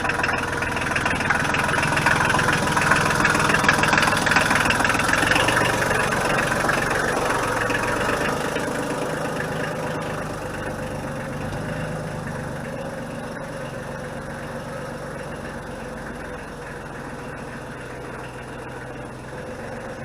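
Kubota L2350 compact diesel tractor engine running steadily. It is loudest in the first few seconds and then slowly grows quieter.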